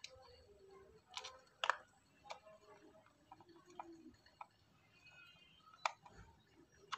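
Scattered light clicks and taps of a small screwdriver and hard plastic toy boat parts being handled while screws are fitted into the hull.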